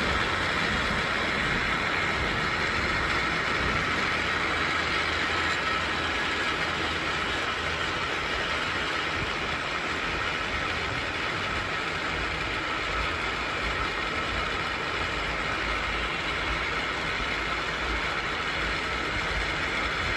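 Lynton and Lynmouth Cliff Railway's water-powered funicular car running on its rails: a steady rumble with a hiss over it, no clear rhythm or sharp knocks.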